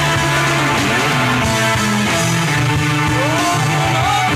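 Live rock band playing: electric guitar over bass and drums, with a note sliding up in pitch near the end.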